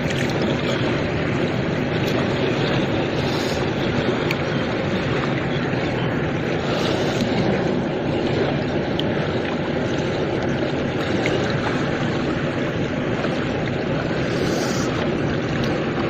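Steady rush of a wide river's flowing water, an even continuous sound.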